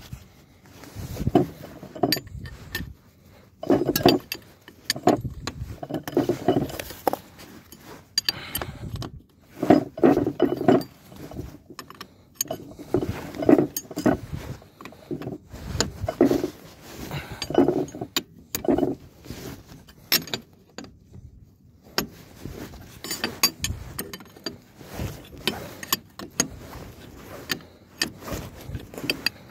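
Metal hand tools clinking and clicking against each other and against the trailer's brake parts in short, irregular bursts, as a wrench works the nuts on a trailer brake chamber.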